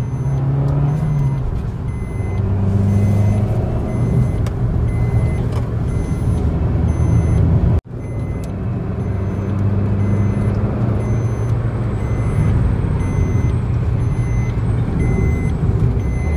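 Car engine and tyre noise heard from inside the cabin while driving, the engine note shifting as the car speeds up and changes gear. A faint electronic warning beep repeats about once a second. The sound cuts out for an instant about eight seconds in.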